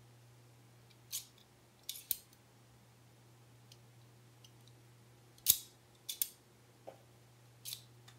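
Blade slide of a Giaco Maker Knife, a metal-bodied utility knife, worked back and forth by hand, giving short metallic clicks and scrapes at irregular moments, the loudest about five and a half seconds in. The slide does not run smoothly. A steady low hum runs underneath.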